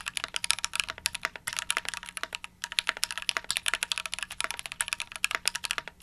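Fast typing on a stock Keychron Q3 mechanical keyboard, its steel-plated TKL board at factory state with stock switches and stabilizers, keystrokes clacking in quick runs with two brief pauses. In stock form the board sounds pingy and hollow.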